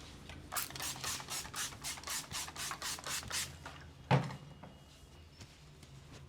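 Massage hand strokes on skin: about a dozen quick, rhythmic strokes, some four a second, then one louder slap.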